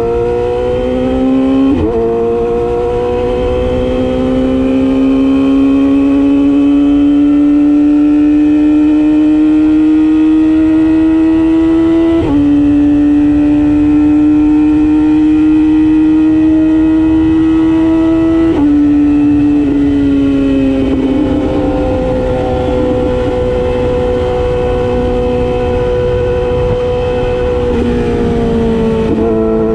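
Yamaha YZF-R6's inline-four engine running under way, its pitch climbing slowly through the gears with abrupt changes at shifts about 2, 12 and 18 seconds in, then easing off and dropping lower near the end.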